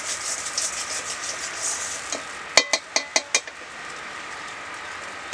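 Metal spatula stirring and scraping ground green-pea paste in a metal wok as it is cooked dry, with a light sizzle. About two and a half seconds in, five quick ringing clanks of the spatula knocking against the wok.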